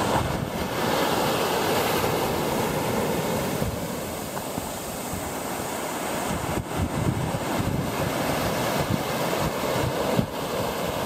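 Small surf waves breaking and washing up a sandy beach in a steady rush, swelling and easing with each wave, with wind buffeting the microphone.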